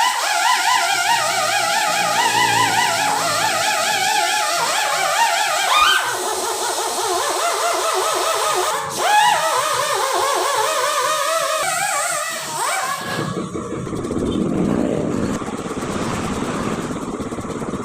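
Background music: a warbling melody with heavy vibrato. About thirteen seconds in it gives way to a steady rushing noise with a low rumble, like traffic or machinery.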